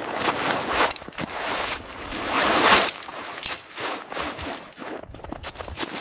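A rapid, irregular mix of clattering, knocking and rustling from camp gear being handled and set up, with the loudest rustling swell about halfway through.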